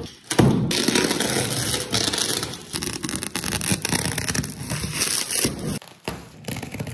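Packaging of a delivery box being torn open by hand: a dense run of tearing, crinkling and scraping, with a short break about six seconds in.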